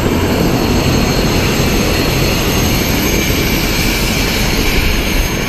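Helicopter engine and rotor running close by: a loud, steady rush with a few thin high tones held throughout.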